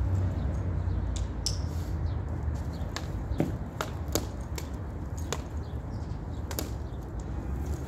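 Irregular sharp taps and splats as paint is flicked by hand onto a canvas, a dozen or so strikes spaced unevenly, over a steady low background rumble.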